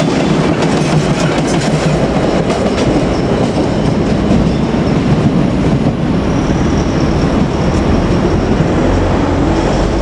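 A train of DE10 diesel locomotives and a Maya 34 track-inspection car passing close by, its wheels clicking over rail joints above a steady loud rumble. A faint high whine comes in about halfway through.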